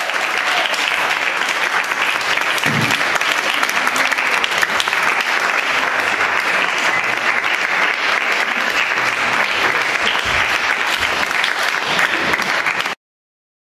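Small audience applauding steadily with dense clapping, which cuts off suddenly near the end.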